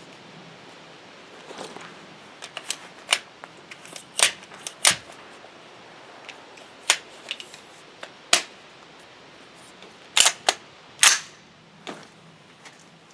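A string of gunshots at irregular intervals: about eight sharp reports of varying loudness, two of them close together around ten seconds in, with fainter shots between them.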